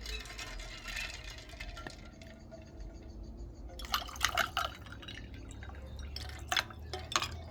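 Liquid poured into a glass, with a few sharp glass clinks about four seconds in and again near the end.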